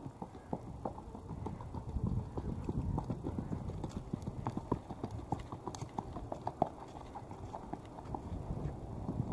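Hoofbeats of a Kentucky Mountain mare moving in her smooth saddle gait on packed dirt: a quick, continuous run of soft clip-clops, several a second.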